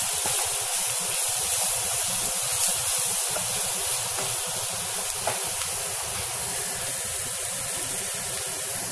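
Grated carrot, onion and green chilli sizzling in oil in a nonstick pan as a spatula stirs them: a steady hiss with a few light scrapes of the spatula.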